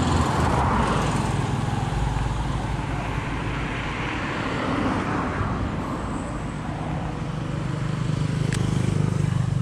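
Road traffic passing close by: motor scooters and a car going past, their engine and tyre noise swelling as each one goes by. A single sharp click comes near the end.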